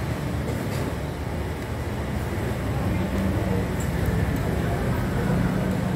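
Steady low rumble of road traffic, with a vehicle engine's hum coming in about halfway through.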